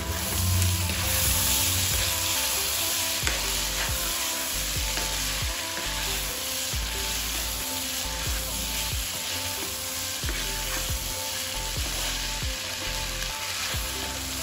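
Chicken pasta with soy sauce sizzling as it fries in a pan, stirred with a spatula that gives a few faint clicks. The sizzle is a steady hiss.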